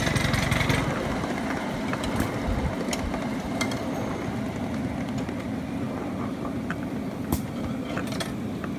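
Ride-on miniature railway train rolling along the track, with a steady low drone and occasional sharp clicks from the wheels. A louder rhythmic engine note dies down about a second in.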